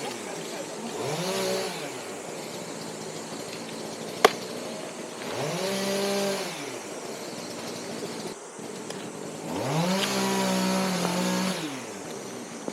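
Husqvarna T540iXP battery top-handle chainsaw triggered three times without cutting, its motor and chain whining up in pitch and spinning back down each time, the last burst held at full speed for about a second and a half. A single sharp click about four seconds in.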